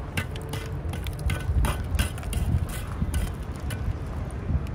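Hands patting and plastering wet mud onto the rim of a clay oven: irregular soft slaps and knocks over a steady low rumble.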